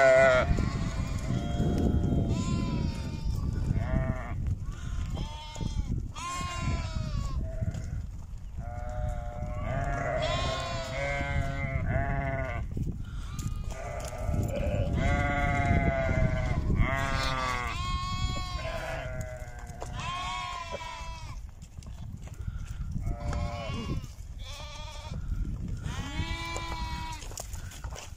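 A flock of Harri sheep, ewes and their lambs, bleating over and over, many overlapping calls of different pitches, some high and some low.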